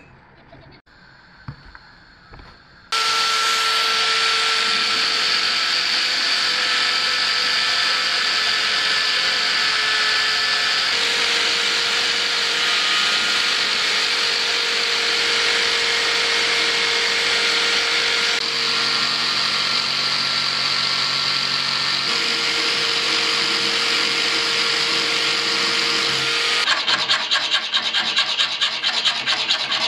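An electric drill running a grinding stone against the D2 steel blade of a folding knife: a steady motor tone with a grinding hiss, starting about three seconds in. Near the end it gives way to the rasping back-and-forth strokes of a hand file on the blade.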